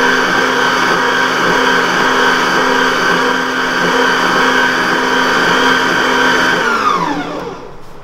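Mito MX100 stand mixer motor running at low speed, beating cake batter in its steel bowl: a steady whine over a low whirr. About seven seconds in it is switched off, and the whine falls in pitch as the motor winds down to a stop.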